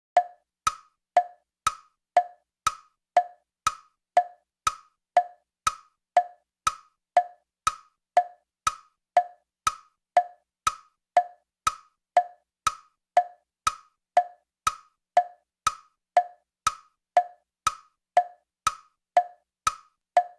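Tick-tock effect: sharp wooden clicks, evenly spaced at about two a second, alternating between a lower and a higher pitch like a clock's tick and tock.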